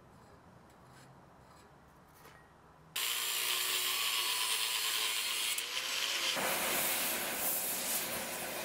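A few faint handling ticks, then about three seconds in an angle grinder starts suddenly, cutting into a steel sword tang with a loud, steady, high grinding screech. A few seconds later it gives way to a steady rushing hiss as a torch is put to the steel.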